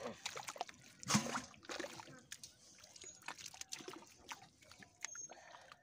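Live fish thrashing in muddy water in a metal basin: wet sloshing and slapping with many short splashy clicks, loudest about a second in.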